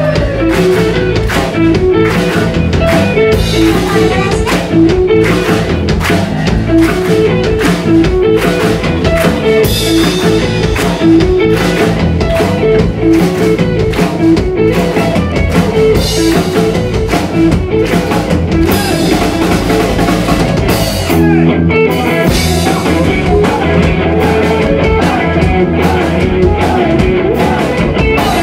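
A rock band playing live: drum kit, electric guitar and bass guitar working through a repeating riff, with the arrangement shifting about three-quarters of the way through.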